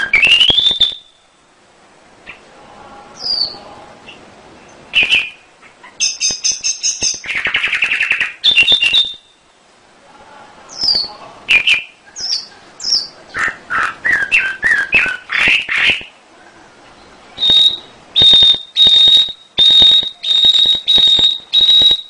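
Domestic canary singing a long, varied song of whistled notes, chirps and trills. A dense rolling trill comes about seven seconds in, and a run of clear repeated high notes near the end.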